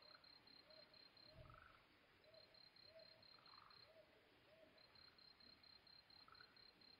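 Faint dusk chorus: a cricket chirping in long bursts of high, evenly pulsed notes, a Ryukyu brown hawk-owl giving soft low hoots in pairs about every second, and occasional frog calls. A faint low thud about a second and a half in.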